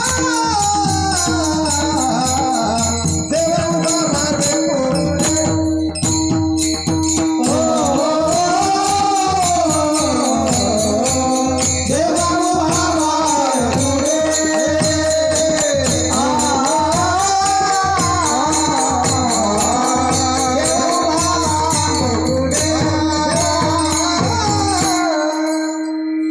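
Marathi kirtan singing: a voice sings a devotional melody over a steady drone, with small hand cymbals keeping a fast, even beat. The music stops near the end.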